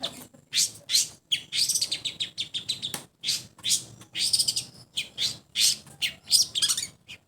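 Long-tailed shrike (cendet) singing: a fast, continuous run of short, scratchy high-pitched chirps and chatter notes, several a second, with only brief pauses.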